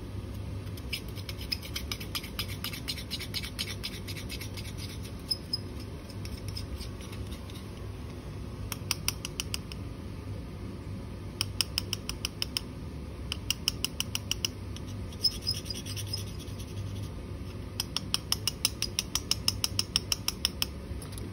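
Runs of quick light clicks, about eight to ten a second, in several bursts: a spatula being tapped to sprinkle powder into a glass beaker on an analytical balance.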